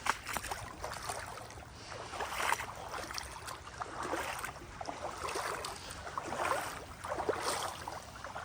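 Boots wading through deep, flowing floodwater, with a slosh and splash at each step over the steady rush of the current.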